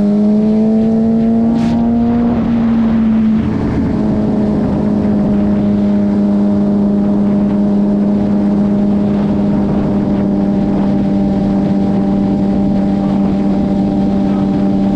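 Suzuki GSX-R600 inline-four sport-bike engine with the revs climbing for the first couple of seconds. It then settles into a steady cruise, under the rush of wind over the moving bike.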